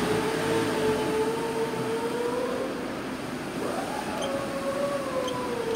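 A refrigerant recovery/recharge machine running with a steady mechanical hum, its tone drifting slowly up and down in pitch, with a couple of faint clicks from the keypad near the end.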